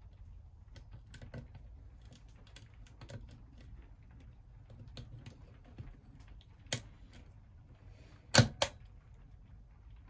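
Lock pick and tension wrench scraping and clicking in the keyway of a Master Lock 607 brass padlock, a run of small sharp clicks. A louder metallic click comes about seven seconds in, then two loud clicks in quick succession about eight and a half seconds in.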